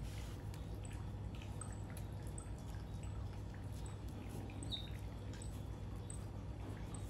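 Deer fawn licking its lips and chewing, a string of small wet smacking clicks over a low steady hum.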